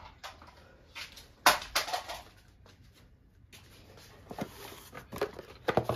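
Hands handling a circuit card in an ISA backplane. There is a sharp knock about one and a half seconds in, then scattered clicks and light rattles near the end as the card is gripped and worked out of its slot.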